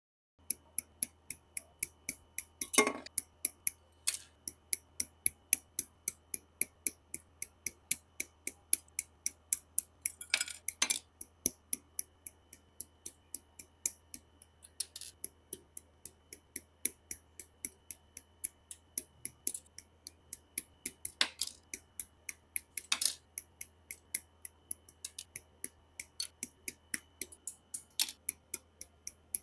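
Rapid, fairly even sharp plastic clicks, about three a second, from handling the parts of a Gunpla plastic model kit, with a few louder snaps scattered through.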